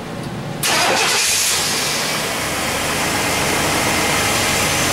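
1996 GMC pickup's engine started on the starter, catching suddenly about half a second in and settling into a steady idle. Its distributor cap has just been cleaned of crust, and it runs a little smoother for it, no longer jumping.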